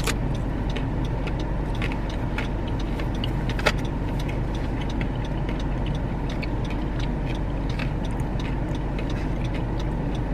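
Steady low hum inside a car cabin with the engine running, with scattered faint clicks and one sharper click about three and a half seconds in.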